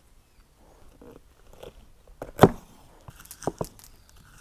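A broad-bladed kitchen knife cutting through a lemon and a red bell pepper on an end-grain wooden cutting board: soft crisp slicing, then a sharp knock of the blade on the board about two and a half seconds in and a quick run of chops near the end.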